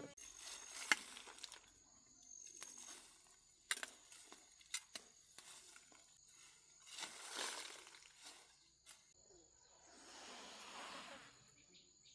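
Quiet forest sounds: scattered clicks and rustles, two longer hissing rushes, and a thin steady high insect tone.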